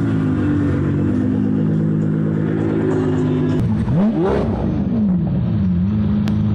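Car engine idling, then revved once about four seconds in, the pitch climbing quickly and falling back to idle.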